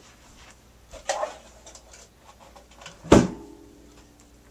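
The Cinch book-binding machine being moved off the work table: a short scrape about a second in, then a loud clunk about three seconds in as it is set down, with a brief low ring after it.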